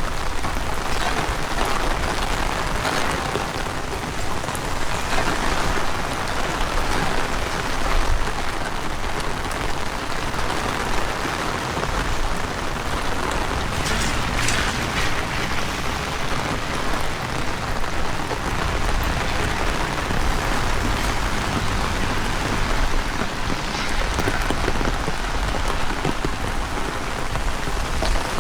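Heavy rain falling steadily, with a low rumble of strong wind underneath that swells and eases.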